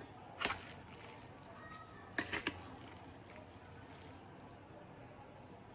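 A serving spoon clinking against the dishes while scooping cooked rice from a pan: one short clink about half a second in, then three quick clinks a little after two seconds.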